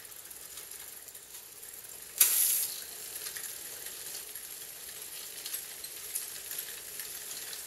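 Aerosol can of foaming bike-chain cleaner spraying onto the chain and rear sprockets: a loud burst of hiss about two seconds in, then a steady hiss, with the rear hub's freewheel ticking as the chain is turned backwards.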